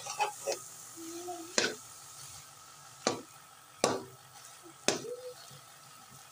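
A metal spoon stirring and mashing thick carrot halwa with khoya in a metal pot, with a few sharp clinks as the spoon strikes the pan, about one a second. A faint sizzle of frying runs underneath.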